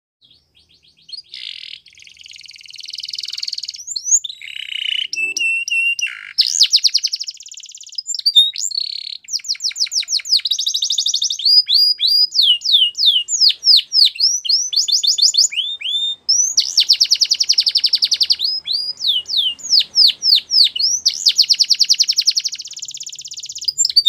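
A male domestic canary singing a long, continuous, high-pitched song that starts about a second in: fast rattling trills alternate with runs of quick sliding whistled notes.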